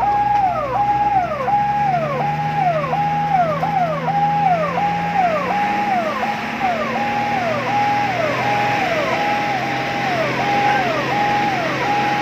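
Fire engine's electronic siren sounding a fast repeating pattern: each note is held, then drops in pitch, nearly twice a second. A vehicle engine runs low underneath.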